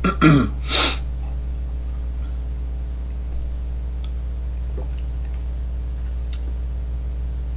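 A man's short falling 'ahh' and a breath out right after a sip of neat whiskey, then a steady low hum with a few faint clicks.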